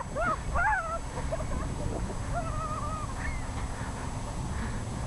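Seagulls calling: a few short cries that rise and fall in the first second, then a longer, flatter call near the middle.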